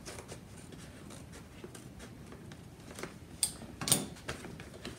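Scissors snipping into a cardboard box and the box being handled: a run of faint clicks and rustles, with two louder sharp clicks about three and a half and four seconds in.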